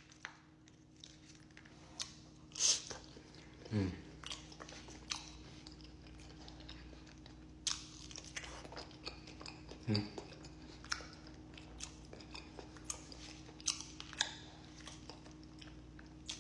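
A person chewing and biting food close to the microphone, with irregular crisp crunches, the loudest a little under three seconds in.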